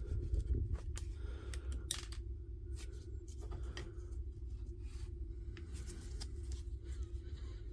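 Short, light clicks and scrapes of hand tools working at a DeWalt DCF887 impact driver's chuck to free a broken bit, over a steady low hum.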